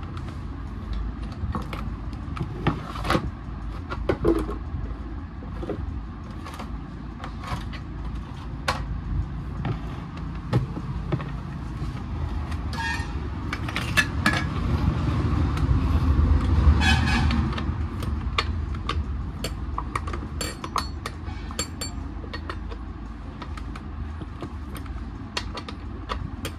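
Scattered clicks and knocks of a petrol chainsaw's plastic housing being handled and shifted on a concrete floor, over a steady low background rumble that swells for a few seconds in the middle, with a few brief high tones.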